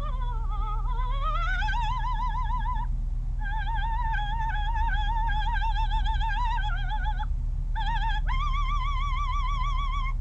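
High operatic singing voice with a wide, fast vibrato. The sung line slides down and back up, then holds long notes with short breaks, over a steady low hum.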